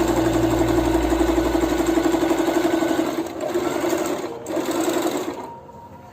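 Singer Promise 1412 electric sewing machine running fast with an even, rapid rhythm, sewing a zigzag stitch. It slows, pauses briefly, runs again and stops about five and a half seconds in.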